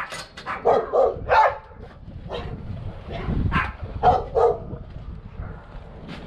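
A dog barking repeatedly in short barks, several in quick succession, stopping a little past halfway through.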